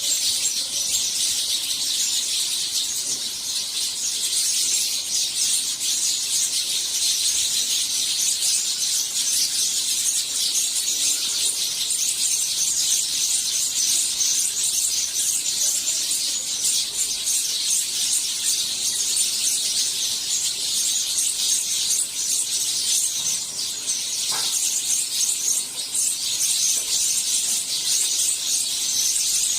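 A flock of house sparrows chirping nonstop, with many high calls overlapping into a dense chatter.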